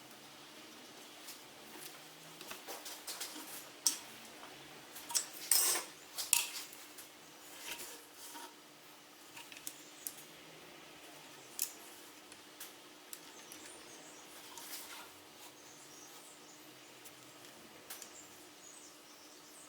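Scattered light clicks and clatters of small hard objects being handled, a few louder ones between about four and six and a half seconds in, over a faint steady hum.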